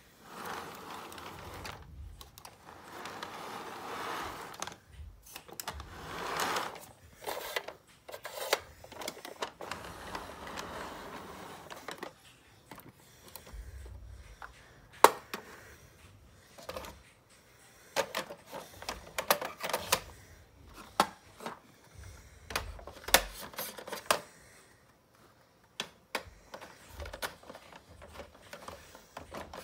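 Plastic model train locomotive and cars being handled on the track: a rustling, scraping stretch for the first dozen seconds, then scattered clicks and knocks, one sharp knock about fifteen seconds in.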